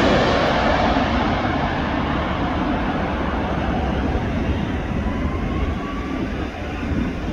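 Jet engines of a Boeing 787 airliner fading away after it passes low overhead on final approach. The loud hiss dies off quickly at the start, leaving a steady rumble that slowly weakens as the aircraft descends to touchdown.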